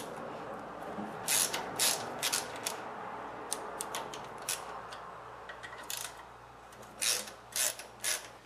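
Socket ratchet clicking in quick runs as an 8 mm socket turns out the bolts holding the ignition module, over a steady hiss.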